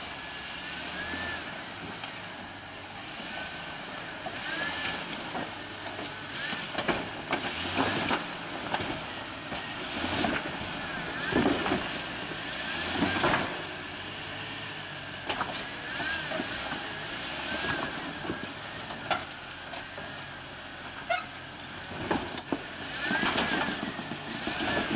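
Jeep Cherokee XJ crawling up a boulder field: the engine rising and falling under load, with repeated knocks as the Jeep works over the rocks.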